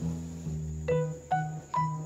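Background music: a light melody of short, separate notes, climbing in pitch, over a low sustained bass.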